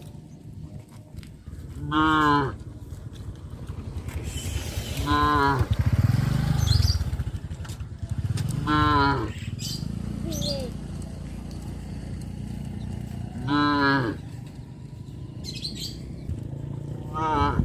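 Cattle mooing: five short calls about every three to four seconds, with a longer, deeper moo in the middle.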